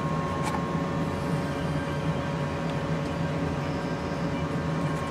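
Steady machine hum with a constant thin high whine over it, and a faint tap about half a second in.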